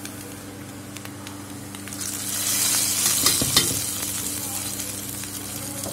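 Hot tempering of onions and mustard, cumin and fenugreek seeds fried in oil, sizzling quietly in the pan, then tipped into a pot of fish curry about two seconds in. It sets off a loud sizzle with a few crackles that dies down over the next couple of seconds.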